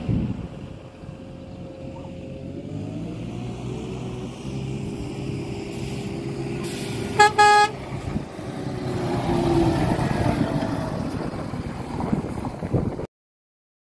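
Scania truck approaching with its diesel engine running, then two quick blasts of its air horn about seven seconds in, and the engine growing louder as the truck drives past. The sound cuts off abruptly near the end.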